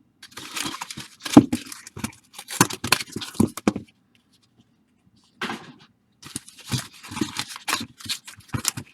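Baseball card pack wrappers being torn open and crinkled, in two busy stretches with a short pause between them.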